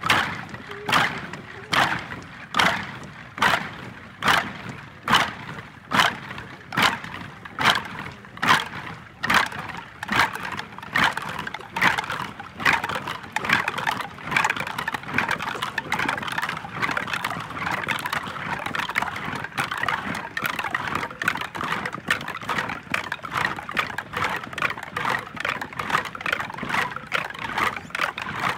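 Footfalls of a marching militia formation: many boots striking the ground in step, about three beats every two seconds. After about twelve seconds the beats become faster and denser, with feet falling less evenly, as of a large column walking out of step.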